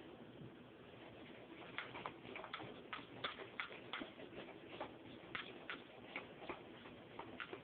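Wire whisk clicking and scraping against the sides of a mixing bowl as it beats pancake batter. The clicks are light and irregular, a few a second, starting about two seconds in.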